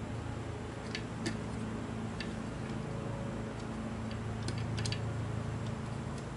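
Scattered light clicks and taps of metal hand-plane parts being handled and fitted together, about eight in all with a cluster near the middle, over a steady low hum.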